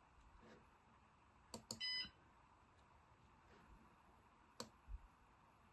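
Near silence broken by a few faint clicks, typical of a computer mouse, and one short electronic beep about two seconds in.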